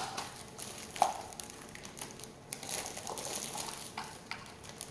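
Clear plastic packaging bag around a compressor wheel crinkling and rustling as it is handled, with irregular crackles and one sharp click about a second in.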